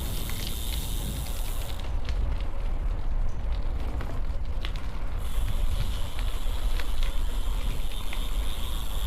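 Wind rushing and buffeting on the microphone of a moving bicycle, a steady low rumble with an even hiss and a few faint ticks.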